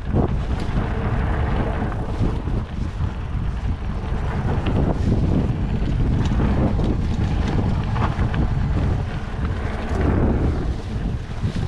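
Wind rushing over the action camera's microphone, with the tyres of a Trek Stache 29+ hardtail mountain bike rumbling over dirt singletrack. Scattered small clicks and rattles from the bike run through it.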